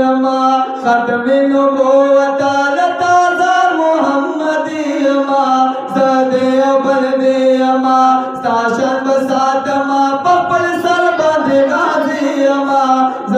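Male voices singing a Pashto naat, unaccompanied devotional verse, into microphones: a wavering melody of long drawn-out notes over a steady held drone note.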